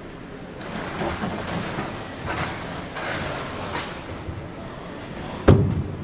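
A man climbing aboard an aluminum fishing boat on its trailer: irregular scuffing and clattering of footsteps and handholds on the hull and deck, then one loud thump about five and a half seconds in.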